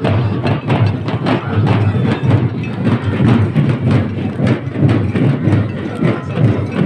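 A group of large drums, round frame drums and a long drum, beaten with sticks in a procession, keeping up a fast, steady beat of about four to five strokes a second.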